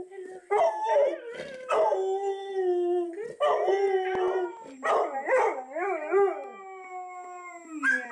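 Black Labrador retriever howling: a series of about four long, drawn-out howls with short breaks between them, the longest wavering up and down in pitch about five seconds in.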